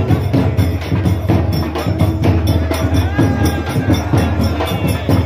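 Loud procession music with fast, even drumbeats several times a second and a melody line over them.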